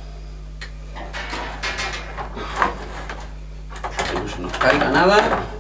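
Hands handling a gas boiler's plastic control panel: rubbing, scraping and small knocks of plastic parts, loudest in the last second and a half.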